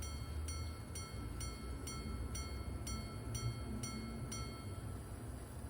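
Early-1800s quarter repeater pocket watch striking the time: its little hammer hits the chime about ten times at an even pace of roughly two a second, each strike ringing bright and high, counting out the hours. A faint steady whine from the repeating train runs beneath the strikes and stops just after the last one, about four and a half seconds in.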